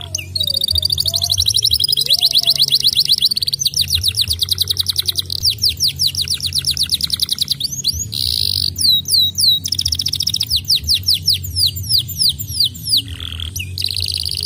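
Domestic canary singing a long, continuous song of fast trills and rapid runs of repeated sweeping notes, broken by short buzzy notes about eight seconds in and near the end.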